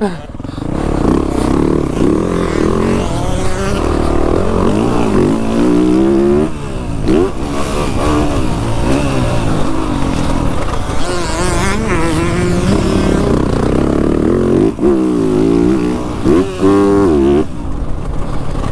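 Motocross bike engine heard from on board while riding a dirt track, revving up and dropping back again and again as the rider goes through the gears and on and off the throttle, with brief cuts about six and a half and fifteen seconds in.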